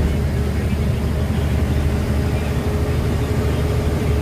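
Moving bus heard from inside the passenger cabin: a steady low rumble of engine, road and wind noise through the open windows, with a faint steady hum above it.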